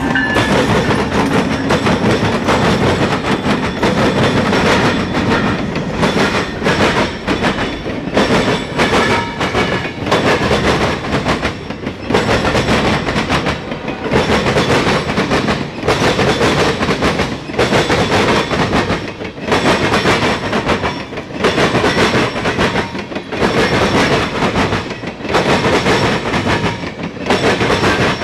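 Diesel-hauled freight train passing close by: the lead locomotive rumbles past, then the freight cars roll by. Their wheels clatter rhythmically over the track crossing, in pulses about every second and a half.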